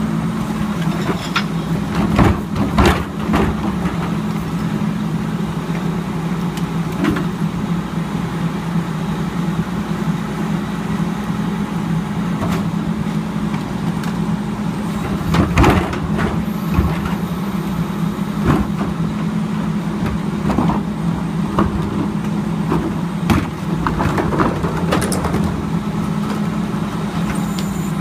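Crane Carrier garbage truck with a Leach rear-loader body running with a steady diesel hum while the cart tippers lift and dump refuse carts. Sharp bangs of carts knocking against the tipper and hopper come in three clusters: a few seconds in, around the middle, and a few seconds before the end.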